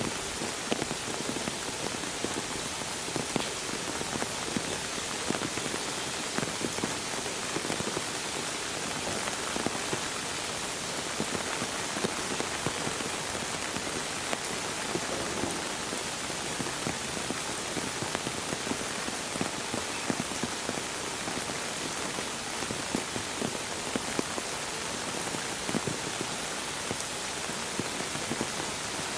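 Steady rain falling, a continuous hiss dotted with many sharp drop ticks.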